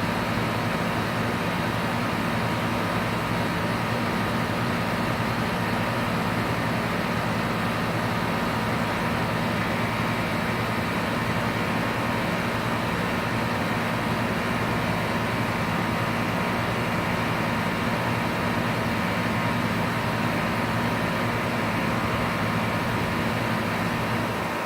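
Outdoor air-conditioning condenser unit running, its compressor and fan making a steady hum with a low drone. The low drone weakens slightly right at the end.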